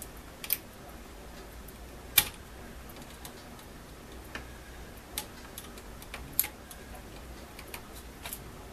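Scattered small metallic clicks and taps at uneven intervals as a steel pick and wrench work against the front housing of a rotary hammer, forcing a part into place. The sharpest click comes about two seconds in.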